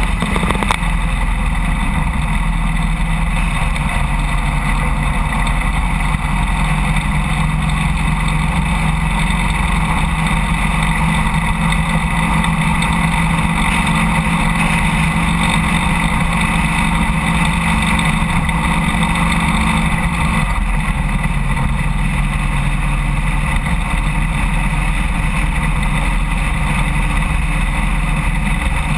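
Harley-Davidson Road King motorcycle running steadily at cruising speed, its engine drone mixed with loud road and wind noise at the bike; the engine's tone changes slightly about twenty seconds in.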